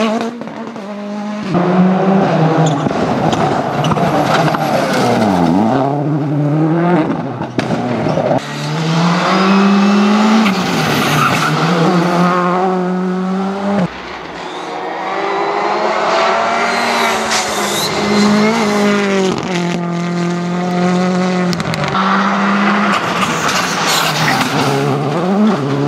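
Rally cars going past one after another at speed, their turbocharged four-cylinder engines revving hard. The pitch climbs as the cars accelerate and drops sharply on downshifts and braking, several times over.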